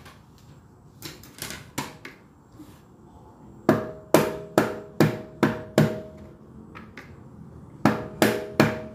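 A hand-held stone pounding a piece of peeled ginger flat on a plastic cutting board: a few light knocks about a second in, then a run of six heavy blows about two and a half a second, each with a short ring. After a pause, three more blows come near the end.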